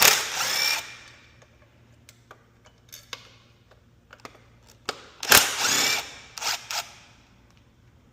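Cordless power drill/driver run in two short bursts about five seconds apart, each with a rising whine as it spins up, removing the fasteners of a motorcycle's tank latch. Small clicks of metal parts being handled in between.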